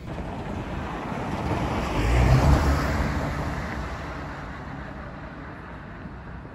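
A car driving past on the street: tyre and engine noise swells to its loudest about two and a half seconds in, then fades away.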